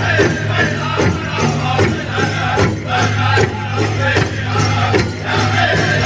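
Powwow drum group singing over a steady, even drumbeat, accompanying a Men's Northern Traditional dance.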